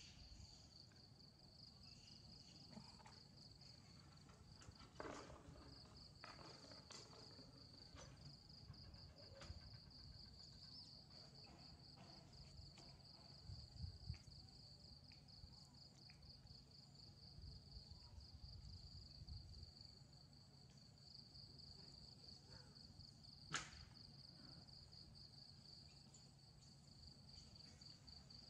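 Near silence with a faint, steady high-pitched insect trill, broken off briefly twice. A few soft clicks and knocks, the sharpest one late on.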